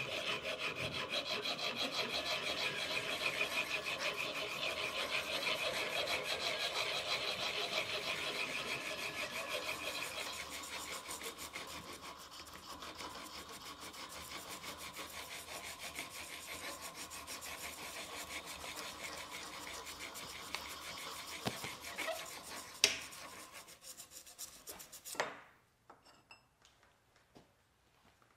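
Hand file scraping back and forth on metal bar stock clamped in a vise, in quick steady strokes that grow softer after about ten seconds. A few sharp knocks come near the end before it falls quiet.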